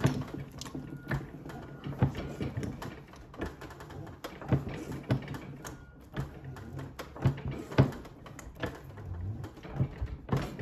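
Coin ring stretcher being cranked by hand, forcing its tapered mandrel into a copper round ring to stretch it larger; the mechanism gives irregular clicks and knocks as the handle is worked in short strokes.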